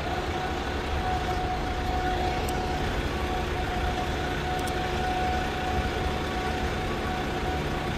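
Intermodal gantry crane running overhead while handling a container: a steady machinery rumble with a steady whine over it that fades out near the end.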